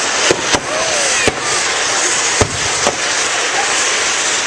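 Fireworks going off: about five sharp bangs in the first three seconds over a steady hiss.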